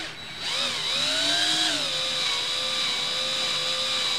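Handheld power drill running, driving a screw through an L-bracket into the recliner's metal frame. The motor whine starts about half a second in, rises and dips in pitch over the first couple of seconds, then holds steady.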